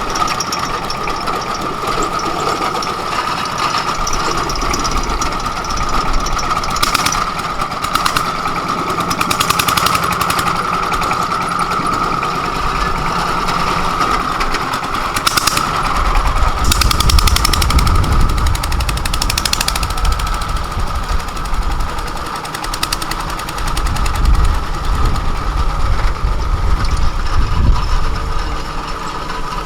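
Engine running steadily with a constant whine, and a deeper, fluctuating engine rumble joins about halfway through.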